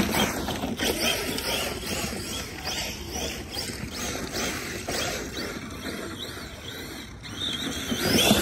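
ARRMA Big Rock 6S RC monster truck's brushless electric motor whining up and down in pitch as it revs, with tires spinning and spraying dirt; loudest near the end.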